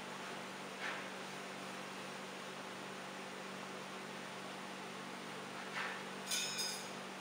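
A steady low hum and hiss under the work at a coal forge, with two short scrapes, then two light metallic clinks near the end as iron tools are worked in the fire.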